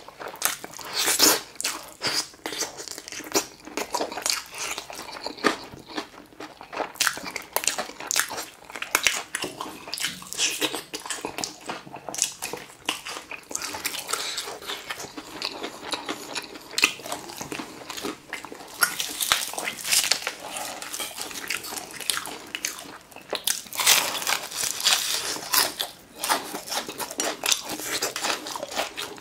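Biting and chewing crispy deep-fried chicken: a dense, irregular run of sharp crunches from the breaded crust, thickest about a second in and again around twenty and twenty-four seconds in.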